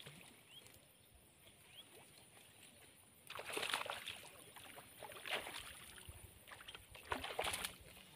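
A small snakehead hooked on a casting lure, splashing and thrashing at the water's surface in several sudden bursts starting about three seconds in.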